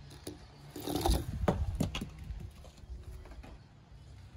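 Small die-cast toy car being set down and rolling on a felt-covered ramp, a short run of knocks and clatter about a second in.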